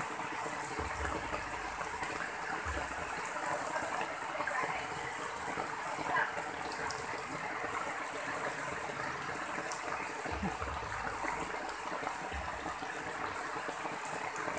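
Muddy floodwater rushing in a steady, continuous gush as it flows over the ground.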